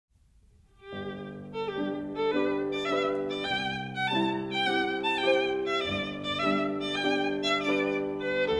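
Background music led by a violin playing a melody with vibrato over lower held notes, starting about a second in.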